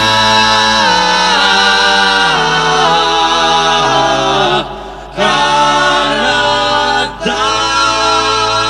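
Male vocal ensemble singing long held chords in close harmony, closing a Belarusian kalyada carol. The chords step slowly in three phrases, with a short break about halfway and another near the end.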